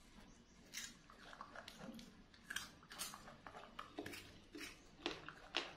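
Pet monkey chewing a piece of peeled fruit: faint, irregular crisp crunches, a dozen or so.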